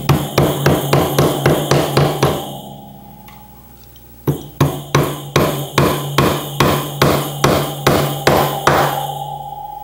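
A hammer driving nails through metal zigzag-spring clips into a hardwood chair frame: two runs of quick, evenly spaced taps, a dozen or more in each, with a pause of about two seconds between.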